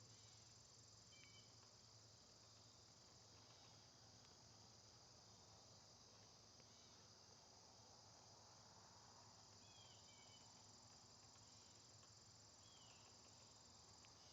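Faint, steady high-pitched insect chorus, with a few short bird chirps about a second in, near ten seconds, and near thirteen seconds.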